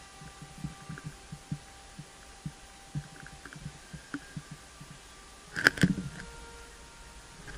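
Soft, irregular low thuds of footsteps and gear jostling a body-worn camera while moving over a forest floor, with faint steady tones underneath. A sharp double knock comes about five and a half seconds in.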